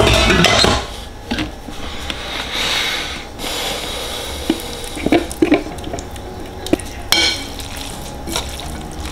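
Kitchen handling sounds of pasta being mixed with basil pesto. A short loud rush at the start as pasta is tipped from a steel pot into a plastic bowl, then a spatula scraping pesto out of a plastic food-processor bowl. Scattered clicks and scrapes follow as a utensil stirs the pasta.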